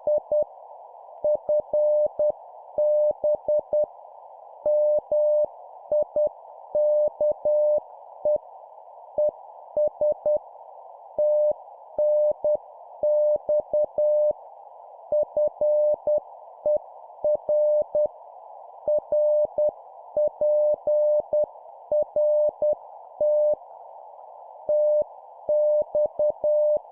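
Morse code at about 10 words per minute: a single steady tone of roughly 600 Hz keyed on and off in dots and dashes, spelling out a ham radio QSO exchange. It sits over a steady hiss confined to a narrow band around the tone, with faint clicks as the tone switches on and off.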